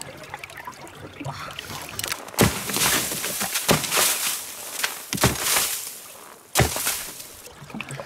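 River water trickling under ice, then an axe chopping into packed snow and ice four times, about every second and a half, each sharp strike followed by a brief crunch.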